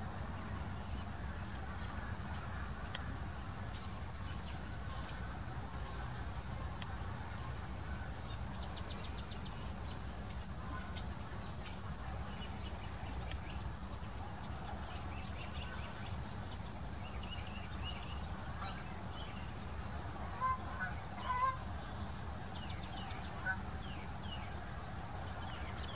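Marsh ambience of wild birds: scattered high chirps and quick trilled ticks from small birds over a steady low rumble, with a few louder calls about 20 to 22 seconds in and once more a little later.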